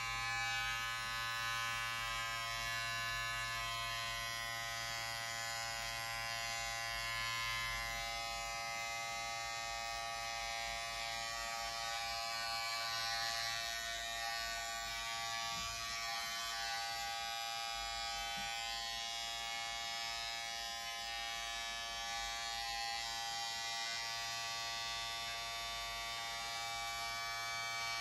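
Electric hair clippers buzzing steadily without a break while cutting hair.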